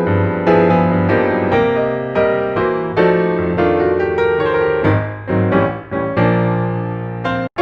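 Background piano music: gentle notes struck about twice a second, each ringing and fading, cutting out for a moment just before the end.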